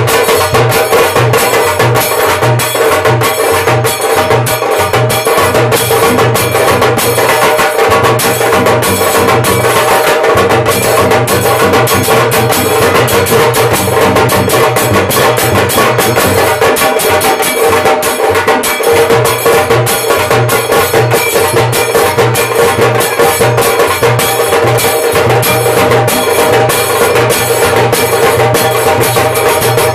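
Tassa band drumming: tassa drums beaten in fast, dense rolls with thin sticks over the steady pulse of the big bass drum, loud and unbroken.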